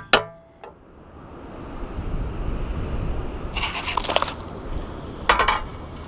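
Sharp knock at the very start, then two short bursts of rattling, gritty scraping about three and a half and five seconds in, as a sand scoop digs into wet beach gravel and stones, over a steady low rumble.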